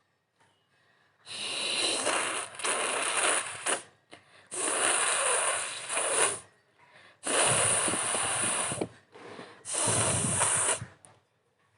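A person blowing heavily through the nose four times, each a long rush of air lasting one to two seconds, with short pauses between.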